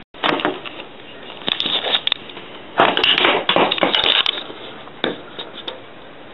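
Irregular bursts of clanking and grinding from the sewer drain, like a garbage disposal running, loudest and longest about three seconds in. The owner puts it down to the drains or sewer line being cleaned out.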